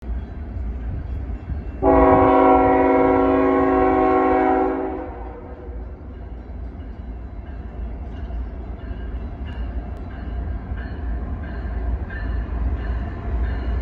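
Diesel freight locomotive's multi-chime air horn sounding one long blast of about three seconds, starting about two seconds in. Under it and after it, the low rumble of the approaching train grows slowly louder.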